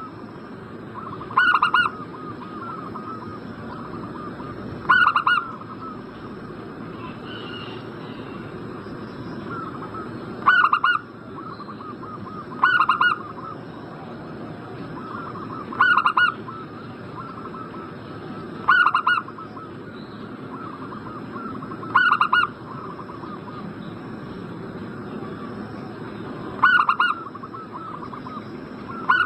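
Zebra dove (perkutut) song: a short loud coo repeating every few seconds, with softer quick cooing notes between, over a faint steady high whine.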